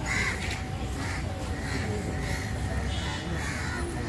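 Crows cawing repeatedly, several short harsh calls a second, over a steady low rumble.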